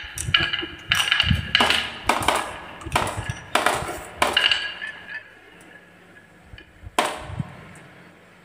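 Glass marbles rolling down grooved wooden slopes and dropping into a plastic toy truck bin, clacking on the wood and clinking against one another. The impacts come thick for about the first four seconds, then thin out, with one more knock about seven seconds in.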